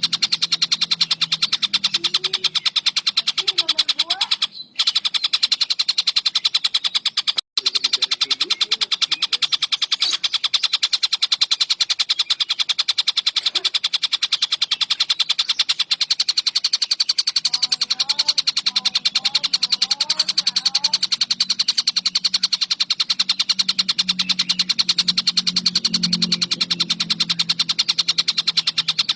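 Birds chattering continuously in a rapid, dense stream of sharp chirps: a bird-training recording of Eurasian tree sparrows calling as they fight, mixed with collared kingfisher calls. The sound drops out briefly twice, near 5 seconds and 7 seconds in.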